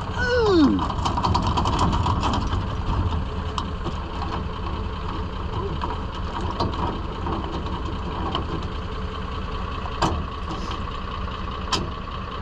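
A pickup truck engine idling steadily. Over it come quick metallic clicking and a short falling squeak in the first few seconds as the boat trailer's tongue jack is worked, then two sharp metal clinks near the end as the hitch and safety chains are handled.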